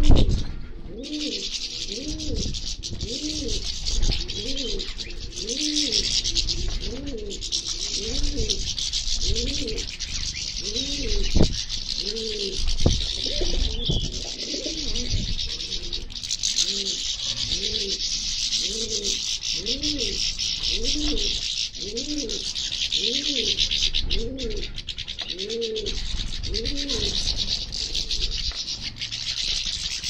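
A flock of European goldfinches and siskins twittering and chattering without a break. Under it, a low mellow call repeats about every three quarters of a second in two long runs, with a short pause near the middle.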